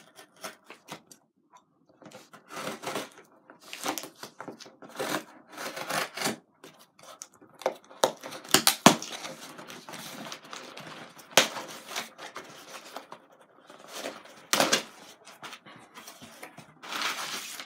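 A cardboard box being cut and torn open along its packing tape, then its flaps pulled open: scratchy tearing and rustling broken by several sharp clicks and taps.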